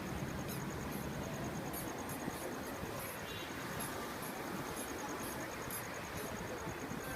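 Fingers rubbing and kneading hair and scalp in a head massage, a scratchy rustling, over a steady noise of street background. A faint high ticking repeats about eight times a second.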